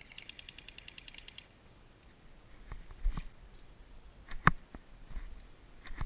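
An airsoft gun firing a full-auto burst of about ten shots a second for a second and a half, followed by a few single sharp cracks, the loudest about four and a half seconds in.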